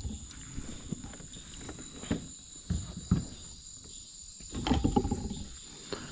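Insects droning steadily at a high pitch, with scattered low knocks and a short stretch of rustling and clatter from handling near the end.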